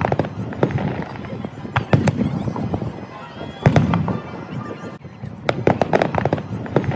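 Fireworks display: aerial shells bursting in sharp bangs, with bunches of rapid crackling reports every second or two.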